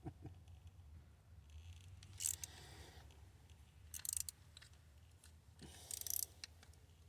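Three short bursts of scraping and clicking, about two seconds apart, as an ATV mirror's threaded stem is worked against a cross-threaded mounting bracket, over a low steady hum.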